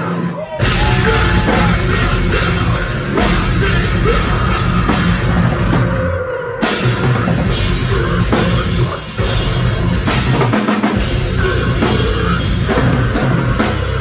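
Metalcore band playing live: heavily distorted guitars, bass and a pounding drum kit with crashing cymbals, loud. The music stops short and hits back in once just after the start and again about six seconds in.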